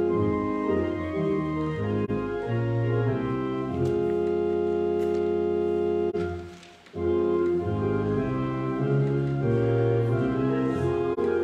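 Church organ playing a hymn in held chords, with a short break a little past halfway before it goes on.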